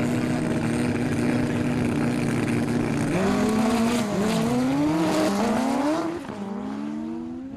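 Two sport motorcycles' engines held at a steady rev on a drag strip start line, then launching about three seconds in. Engine pitch climbs and drops back with each quick upshift, and the sound fades as the bikes pull away down the strip.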